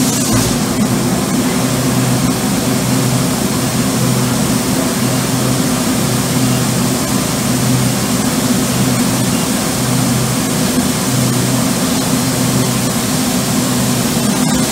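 LS Industries BSC-20 batch cylinder shot blaster running: a steady low hum under a loud, even hiss.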